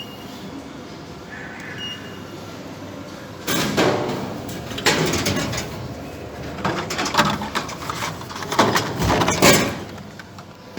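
Hot Wheels vending machine dispensing: mechanical rattling and knocking in bursts from about three and a half seconds in, with a heavy thump about nine seconds in.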